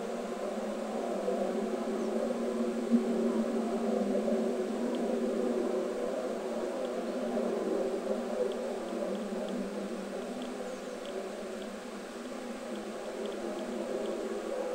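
A steady, low droning hum of several layered pitches, slowly swelling and fading a little in loudness, with a brief pop about three seconds in.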